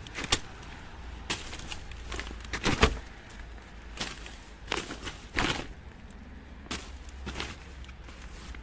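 Plastic bags, wrappers and a vinyl inflatable crinkling and rustling in irregular crackles as a hand rummages through rubbish in a bin, over a steady low rumble.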